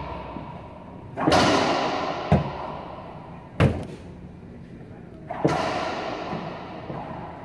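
A racquetball being hit in an enclosed court: four sharp bangs of the ball off the racquet and walls, spaced about one to two seconds apart. Two of them ring on in a long, echoing decay.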